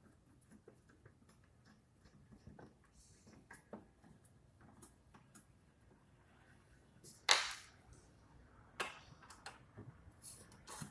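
Scattered small clicks and taps of tools and screws being handled as a DeWalt DW745 table saw fence is taken apart, with a sharper knock about seven seconds in and another near nine.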